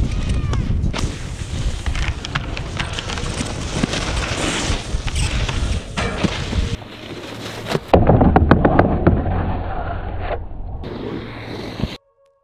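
Wind rushing over an action camera's microphone while snowboarding, with board edges scraping on snow and sharp knocks from rails. The sound shifts abruptly a few times and cuts off suddenly near the end.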